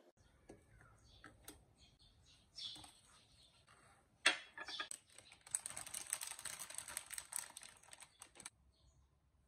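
Kitchen handling sounds: light clicks and taps, then a sharp clack about four seconds in as a ceramic saucer is set down on the counter. From about halfway through comes about three seconds of crinkling as the foil wrapper is peeled off a block of dark compound chocolate, stopping suddenly near the end.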